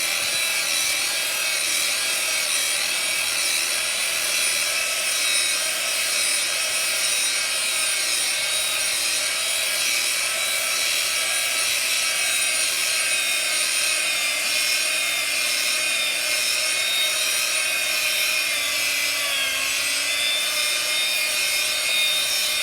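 Power sander running steadily on concrete: a continuous high-pitched whine over the grinding of the pad on the surface.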